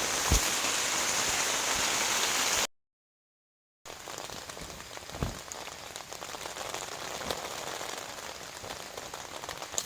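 Steady rain falling. It is louder at first, stops dead for about a second at an edit, then comes back quieter with a few single thuds of drops.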